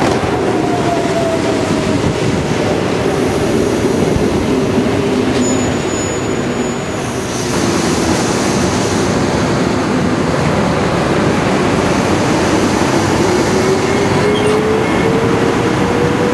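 Passenger train moving alongside a station platform: a steady rumble of wheels and running gear, with a motor whine that rises in pitch over the last few seconds and a brief high squeal about five seconds in.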